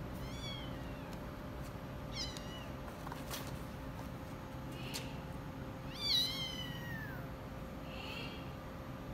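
Persian kittens mewing: short, high-pitched mews that fall in pitch, one near the start and one about two seconds in, then a louder, longer mew about six seconds in and a faint one near the end.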